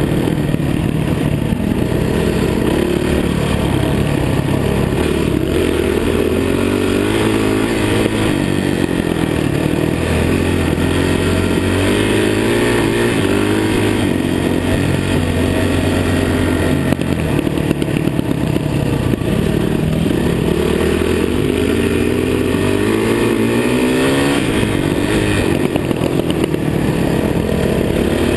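Dirt bike engine running under way on a trail, heard close up from the rider's chest mount. Its pitch rises and falls over and over with the throttle.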